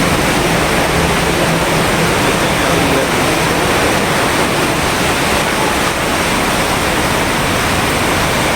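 Steady, loud rush of water from heavy rain and flooding, an even hiss with no breaks.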